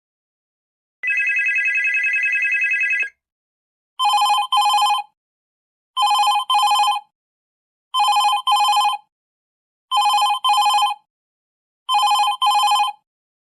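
Cartoon-style old telephone ring sound effects: one long trilling ring of about two seconds, then a lower-pitched double ring repeated five times, a pair every two seconds.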